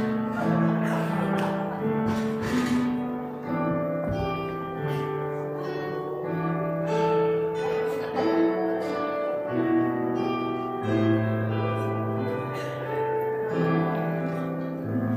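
Instrumental music on a plucked string instrument, notes and chords changing about once a second.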